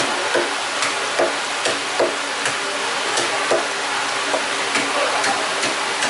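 Fishmonger's hands and knife working over sea bass scraps at the cleaning sink and block, making irregular clicks and knocks about twice a second over a steady hiss.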